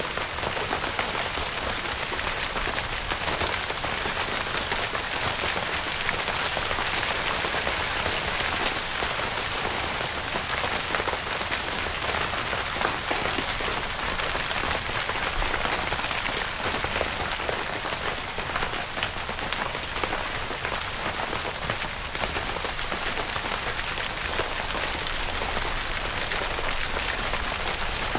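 Steady rain falling on a tent's fabric: a dense, even patter of many small drops that does not change.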